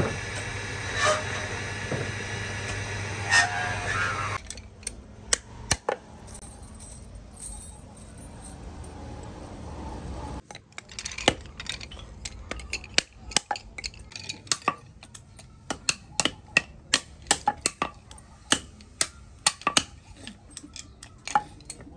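A wood lathe runs with a steady hum, then cuts off about four seconds in. A few scattered clicks follow. From about halfway through comes a run of sharp, irregular metallic clinks and taps from small metal bobbin fittings.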